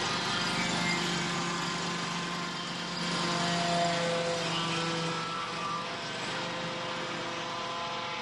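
An engine running steadily, its drone shifting a little in pitch now and then.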